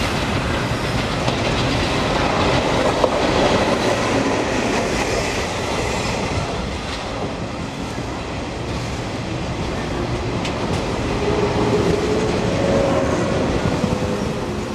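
Passing trains at close range: the wheels of an EF65 electric locomotive and its 24-series sleeper coaches clatter steadily over rail joints, and a 113-series electric multiple unit then runs right past on the near track. A steady hum rises over the clatter in the last few seconds.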